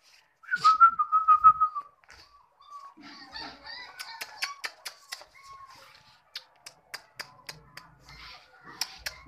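A person whistling to call a puppy: a loud warbling whistle about half a second in, then softer chirping whistles mixed with quick sharp clicks.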